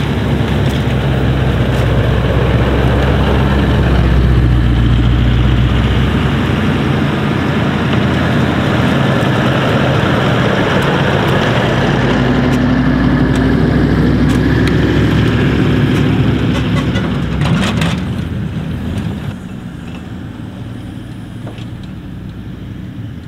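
Two Toyota LandCruisers driving slowly past at close range, the second towing a camper trailer: steady engine and tyre noise, loudest in the first few seconds as the first vehicle comes by. The second vehicle's engine note rises as it passes, a few sharp clicks follow, and the sound then drops away as they pull off.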